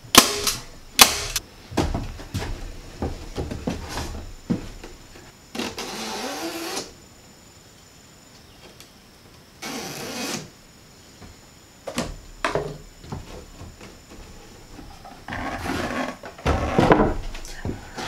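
Insect screen being handled and fitted over a plywood fan box: scattered sharp clicks and knocks, with short rustling or scraping passes about six, ten and sixteen seconds in.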